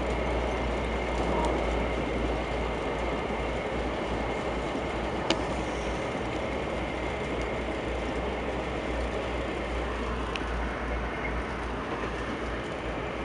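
Passenger train running at speed, heard from inside the coach: a steady rumble of wheels on the rails with a couple of sharp clicks from the track.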